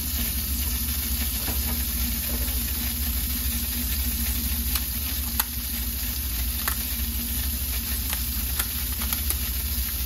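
Kitchen tap water running steadily into a stainless steel sink over a low steady hum, with a few sharp clicks in the middle of the stretch as kitchen shears cut into a raw lobster tail's shell.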